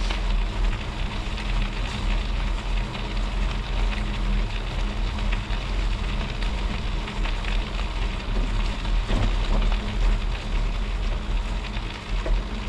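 Knobby fat-bike tyre rolling over clear lake ice: a steady crackling hiss, with wind rumbling on the microphone.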